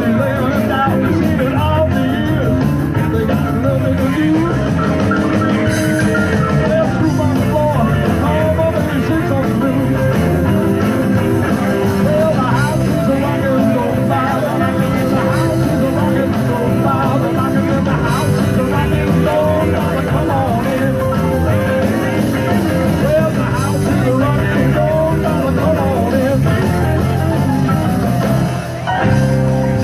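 Rock music with a singer and guitar, loud and steady, with a brief dip near the end.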